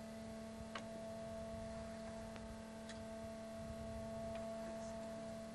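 A steady low hum with a few faint, scattered ticks.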